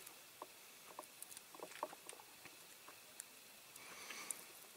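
Near silence with faint, sharp little clicks and taps from a diecast model car body being handled while it is masked with tape, and a brief soft rustle about four seconds in.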